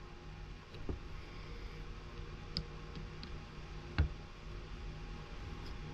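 Soldering gun humming steadily while unsoldering wires from a small electric motor's terminals, with a few light clicks and one sharper tap about four seconds in.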